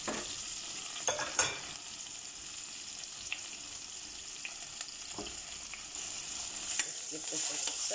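Sliced onion, bay leaf and thyme frying in bubbling butter in a stainless steel pot: a steady sizzling hiss with scattered sharper crackles.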